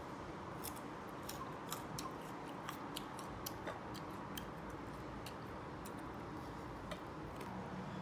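Crisp, irregular crunching clicks of someone biting into and chewing slices of raw, sour unripe mango, over a low steady room hum.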